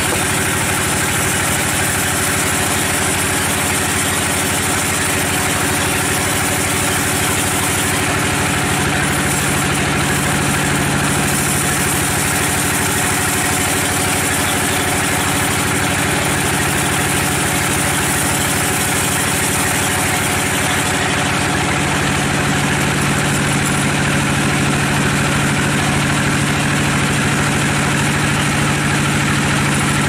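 Band sawmill running and sawing a teak log: a steady mechanical drone with a dense, high saw hiss that eases somewhat about two-thirds of the way through.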